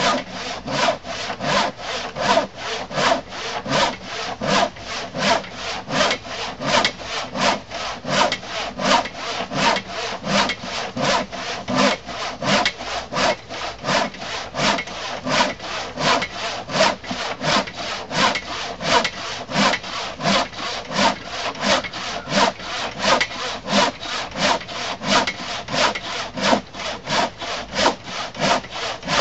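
Sharp handsaw crosscutting through a thick laminated wooden workbench top by hand, in steady, even strokes with about one loud stroke a second.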